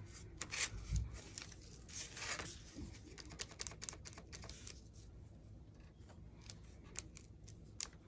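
Gloved fingers pressing and smoothing freshly glued paper onto a board: irregular light taps, crackles and rustles of the paper, with a soft thump on the table about a second in.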